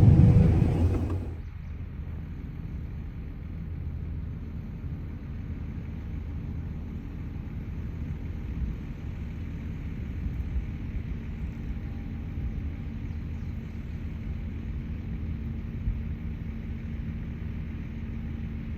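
Combine harvester running steadily while cutting wheat: a low, even machine rumble with a faint steady hum. It is louder for about the first second, then drops to the steady rumble.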